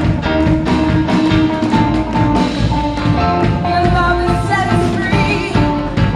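Upbeat live praise-and-worship band music, with steady driving drums under sustained instrument notes and a voice singing.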